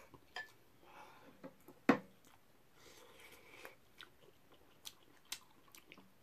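Eating dumpling soup: soft chewing and mouth sounds, with sharp clinks of a metal spoon and ladle against the bowl and the stainless steel pot. The loudest clink comes about two seconds in, and several lighter taps of the ladle on the pot follow in the last two seconds.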